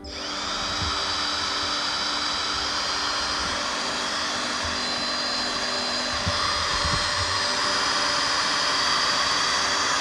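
Hitachi power drill running steadily, its bit boring an 8 mm hole through a steel plate lubricated with WD-40. The motor spins up with a rising whine right at the start.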